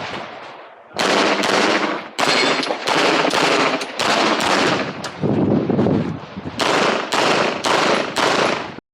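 9mm pistol fired in rapid strings during an IPSC stage, about two to three shots a second, with a short lull near the middle. The shots cut off abruptly near the end.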